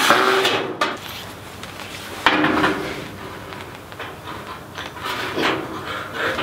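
Galvanized sheet-steel nesting box being handled and fitted against its wooden rails: a few metallic clanks and scrapes, the loudest about two seconds in, with short ringing.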